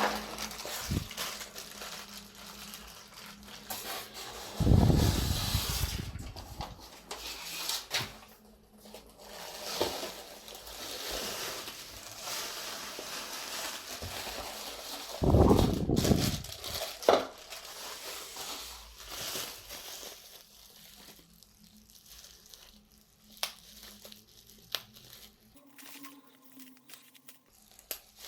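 Polyethylene plastic film wrapping crinkling and being torn off while a packed appliance is unwrapped, with small handling clicks. Two louder low sounds break in, about five and fifteen seconds in.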